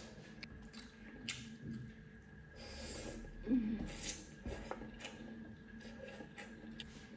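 A person eating instant cup noodles: slurping noodles off a fork, loudest around the middle, with chewing and a few light clicks.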